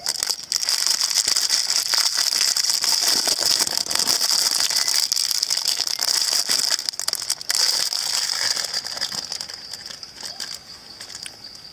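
Dense rattling and crackling of a cracked surprise egg's shell being pulled apart by hand. It is steady for about eight seconds, then dies away.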